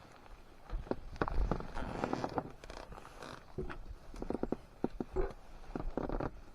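Irregular knocks, taps and rustling in a small boat, of the kind made while handling fishing tackle and a freshly caught fish.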